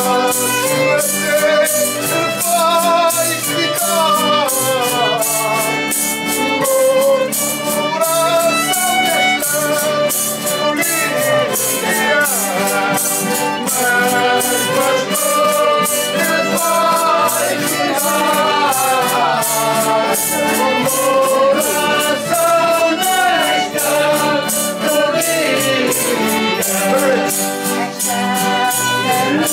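Traditional Azorean folk group singing Janeiras songs together, accompanied by instruments, with a steady percussion beat throughout.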